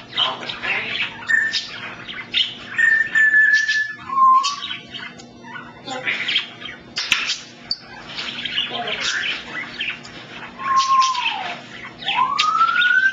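African grey parrot whistling and chattering: several clear single-note whistles, some held steady, one falling in pitch and one rising near the end, mixed with quick clicks and chirps.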